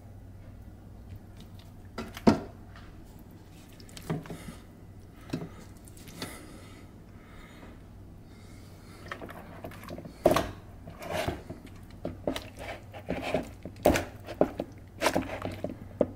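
Raw marinated chicken leg quarters being lifted out of a bowl and laid in an air fryer basket: scattered wet slaps, knocks and scrapes, few at first and coming quickly in the second half. A low steady hum runs underneath.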